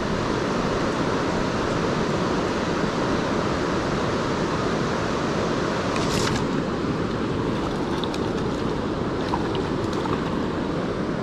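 Steady rush of river current, an even, unbroken water noise, with one brief crisp sound about six seconds in.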